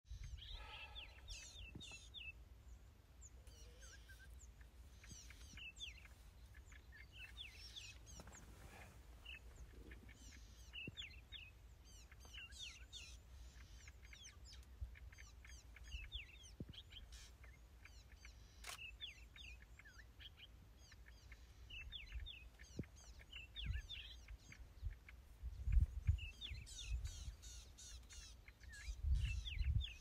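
A chorus of small wild birds chirping and whistling, many short calls overlapping throughout. A low rumble runs underneath and comes in stronger bursts near the end.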